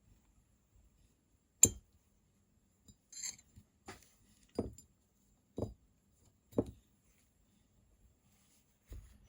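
Small hard parts and tools clinking and tapping on a hard surface while a folding knife is being cleaned: about six separate sharp knocks, the loudest near two seconds in, with a brief scrape in between.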